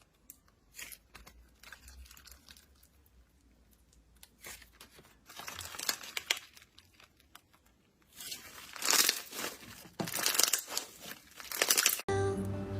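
Slime being squeezed and poked, making crisp crackles and pops: sparse at first, then dense crackling bursts in the second half. Music comes in abruptly near the end.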